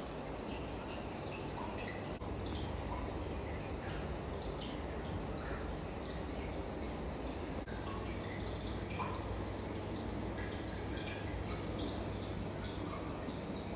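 Steady background hum, with many short, high chirps scattered irregularly through it and a thin, steady high whine above.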